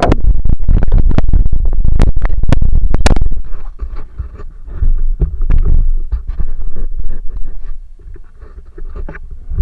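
Loud rumbling and scratching noise against the microphone with sharp clicks, very loud for the first three seconds and again about five seconds in.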